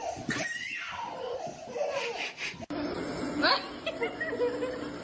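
People laughing, with a sudden change of background nearly three seconds in where one clip ends and the next begins.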